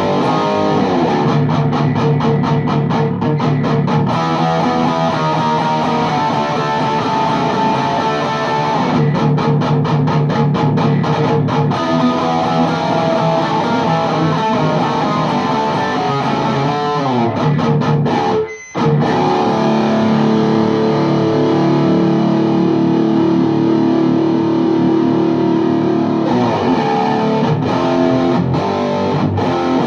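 High-gain distorted electric guitar riffing through a VHT Deliverance D60 tube amp head and a miked 4x12 cabinet: rapid staccato chugs alternate with held chords. A note slides in pitch, and there is a brief full stop about two-thirds of the way through.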